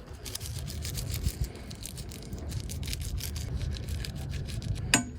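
A small hand brush scrubbing toilet bowl cleaner into a rust stain on a boat, in quick, irregular scratchy strokes over a steady low rumble. Near the end there is one sharp, ringing clink.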